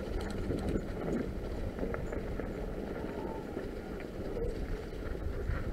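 Norco Fluid FS3 full-suspension mountain bike rolling along a dirt trail covered in fallen leaves: tyre noise over leaves and dirt with a steady low rumble and small rattles and ticks from the bike.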